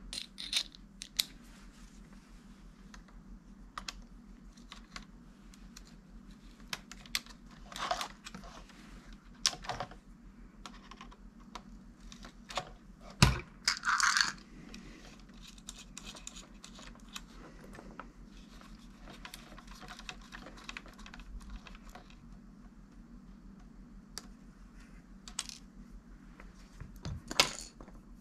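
Scattered clicks, taps and short scrapes of hands working on an opened radio-control transmitter's plastic case, wiring and small tools, with one louder knock about 13 seconds in followed by a brief scraping rustle. A low steady hum runs underneath.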